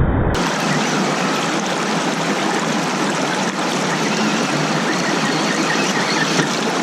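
Steady rush of water from a small mountain waterfall, cutting in abruptly about half a second in.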